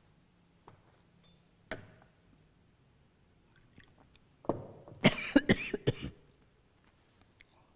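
A person coughing hard several times in quick succession, a short coughing fit about four and a half seconds in, after a single sharp click a couple of seconds earlier.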